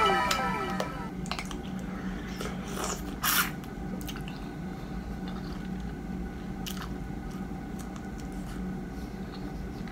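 Close-up eating sounds of small unpeeled mini mangoes being bitten and chewed: wet mouth clicks and squishing, with one louder crunchy bite about three seconds in. A series of falling tones fades out in the first second.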